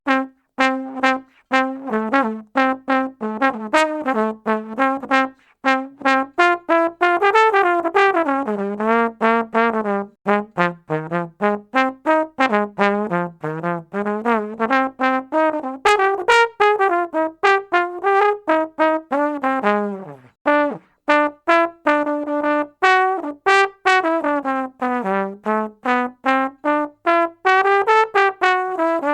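Tuba playing a fast passage of short, separate notes in running lines that climb and fall in pitch, with a few brief breaks.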